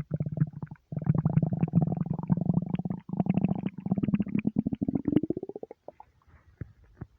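Empty human stomach rumbling: a long, low gurgling growl with a rapid flutter, broken for a moment about three seconds in. It rises in pitch before dying away near the end.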